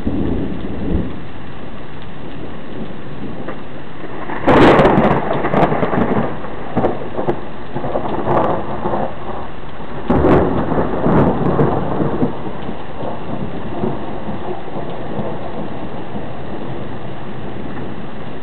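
Thunder in a heavy downpour: steady rain hissing throughout, then a sudden loud crack of thunder about four and a half seconds in that rolls on in waves, with a second loud peak near ten seconds, before dying back into the rain by about fourteen seconds.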